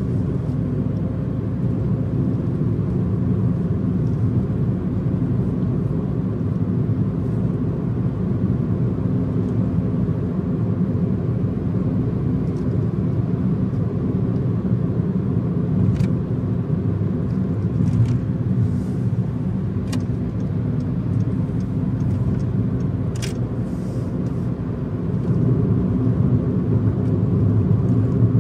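Steady low rumble of a car cruising on an expressway: tyre and engine noise at highway speed. A few faint short ticks come through over it in the second half.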